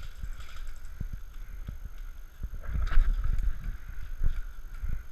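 Irregular low thumps and rustling from a body-worn action camera as its wearer moves, with wind on the microphone and a louder knock about three seconds in.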